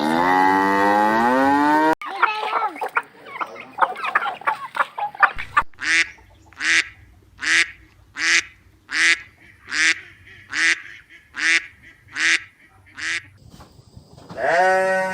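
Farmyard waterfowl calling. A falling drawn-out call opens, then a jumble of overlapping calls, then about ten loud, harsh calls in a steady rhythm, a little under one a second.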